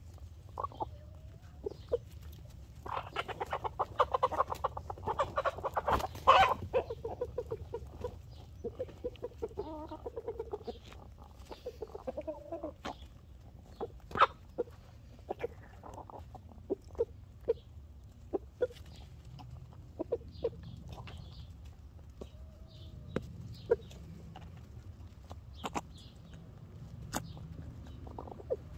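Chickens clucking as they peck at food, with a busy stretch of clucking a few seconds in and again around ten seconds. Sharp taps of beaks striking food and ground close by are scattered throughout.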